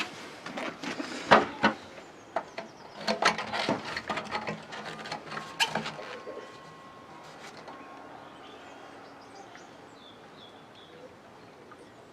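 Knocks and clattering from handling hard objects, several sharp ones in the first half and the loudest about a second in. After that it goes quieter, with a few faint high chirps.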